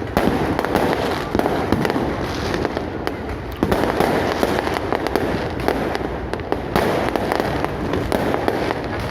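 Fireworks display going off continuously: many overlapping bangs and crackling bursts with no break.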